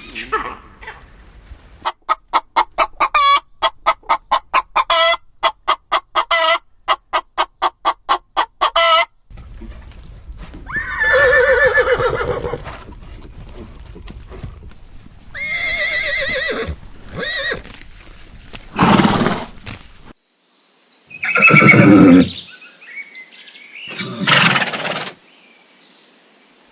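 Farm animal calls one after another: a rapid run of short, evenly spaced calls lasting about seven seconds, then several longer calls with a wavering pitch, among them horse whinnies.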